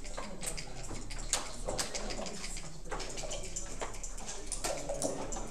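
Busy-room background noise: indistinct voices, scattered sharp clicks and a low steady hum.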